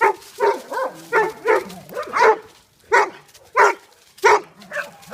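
Dog barking repeatedly: about ten short barks in quick succession, with a couple of brief pauses.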